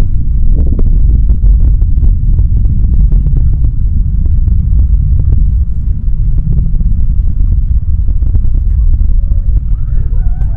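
Falcon 9 rocket engines heard from about 13 miles away: a loud, steady low rumble with a crackling texture.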